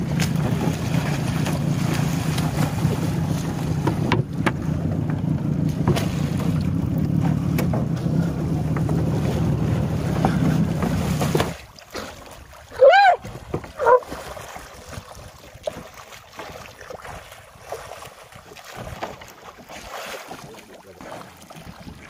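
Small boat's motor running steadily, then cut off about eleven seconds in. Afterwards only faint water noise, with two short high calls that rise and fall.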